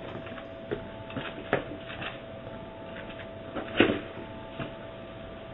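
Doorbell-camera microphone audio: a steady hiss with a faint constant hum, and a few light knocks and rustles, the loudest a little under four seconds in.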